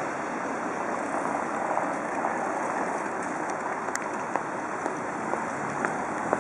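Street traffic: cars driving past on a wet road, a steady hiss of tyres on wet asphalt, with a few faint clicks.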